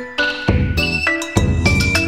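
Background music: a bright jingle of quick pitched notes in a steady rhythm.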